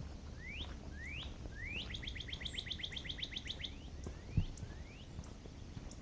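A songbird singing: three rising whistled notes, then a fast trill of about ten notes a second, then two more rising notes. A single short thump about four seconds in.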